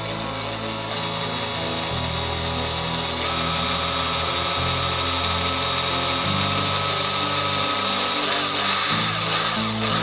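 Small electric drill running steadily as its bit bores a hole through a plastic case, with a held whine joining in about three seconds in. Background music plays underneath.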